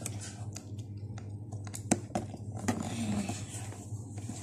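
Small plastic parts of a solar windmill kit being handled and pressed together: a few light clicks and knocks, scattered irregularly, over a steady low hum.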